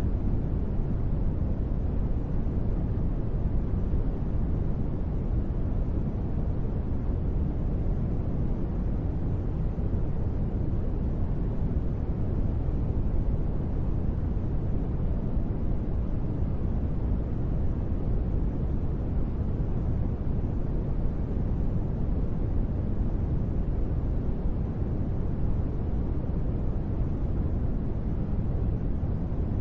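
Steady, unbroken noise of a sleep track billed as gentle rain: a deep, muffled hiss weighted toward the bass, with no separate drops, thunder or changes.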